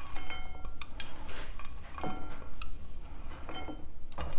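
A small ceramic dish clinking against a serving bowl a few times, each clink ringing briefly, as diced vegetables are tipped from it into the bowl.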